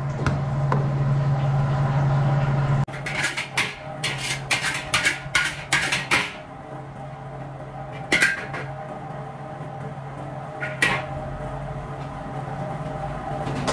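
Metal wok spatula scraping and clanking against a carbon-steel wok: a quick run of strokes, then two single knocks some seconds apart. Under it a steady low hum of kitchen equipment.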